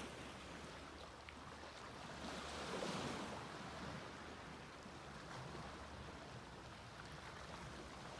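Small sea waves washing onto a beach, with one wave swelling and breaking about three seconds in.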